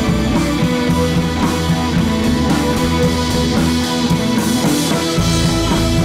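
Rock music with guitar and drums playing steadily; the deep bass drops out briefly and comes back about five seconds in.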